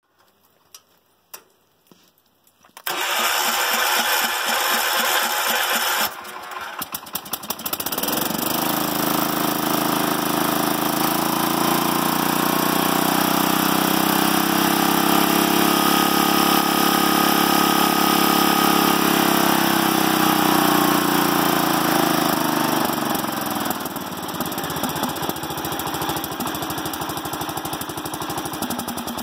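Wheel Horse C160's single-cylinder Kohler engine on its first start since reassembly: a few clicks, then the starter cranks it in two goes of a few seconds each until it catches about eight seconds in. It speeds up, runs fast for several seconds, then slows back to a lower, steady idle.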